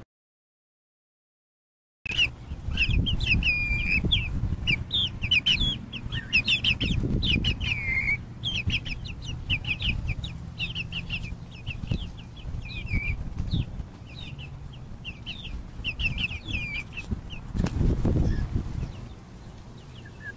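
Silent for about two seconds, then chickens calling: a rapid string of short, high chirps and clucks, with a low rumble underneath that swells briefly near the end.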